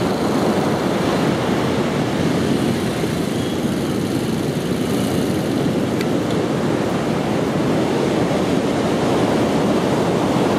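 Steady, even noise of ocean surf and wind, with no pitch or rhythm.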